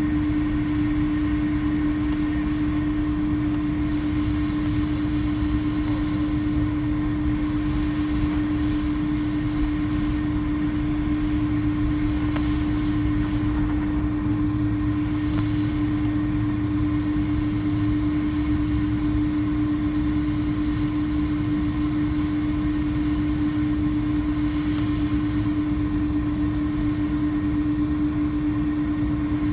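Jet engines of a Korean Air Airbus A330-300 airliner running steadily at low power, heard as a constant hum with a low rumble beneath it and no change in pitch.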